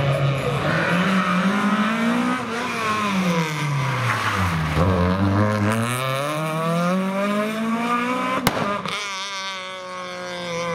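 Rally car engine: the revs fall as the car slows, then climb steadily under hard acceleration for about four seconds. Near the end a sharp crack comes as it shifts up, and the revs drop and hold lower.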